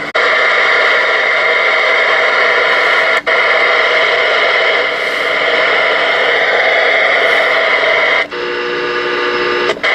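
Uniden Pro-520XL CB radio receiving an open channel: loud, steady static from its speaker. It cuts out briefly about three seconds in, and a few steady whistling tones come through the static near the end.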